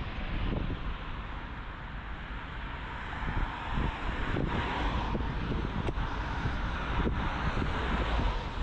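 Street traffic going by, a car's tyre and engine noise swelling about halfway through, over a steady low rumble of wind buffeting the microphone.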